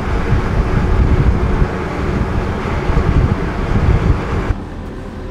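Wind buffeting the microphone on the deck of a moving ferry, a gusty rumble with the ship's steady engine hum beneath. About four and a half seconds in it drops away suddenly, leaving a quieter steady hum.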